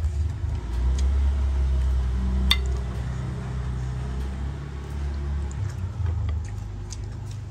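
A low rumble, with one light clink of a metal spoon against a ceramic plate about two and a half seconds in.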